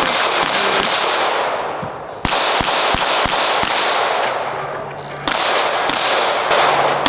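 A string of pistol shots fired in quick succession, about three shots a second in the middle, heard under a loud rushing noise that surges up abruptly three times and fades after each surge.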